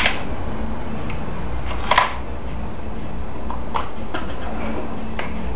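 A single sharp shot from a CBC 5.5 mm (.22) air rifle about two seconds in, over a steady hiss, with a few fainter clicks later on.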